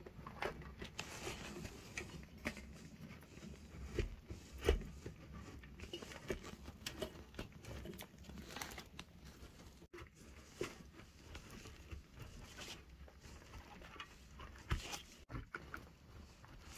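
A block of cheese being grated by hand on a stainless steel box grater standing in a metal tray: quiet, irregular scraping strokes, with a few dull knocks.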